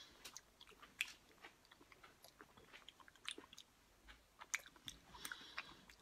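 Faint close-miked chewing of a mouthful of small translucent gel-like beads, with many short sharp clicks and pops as they are bitten.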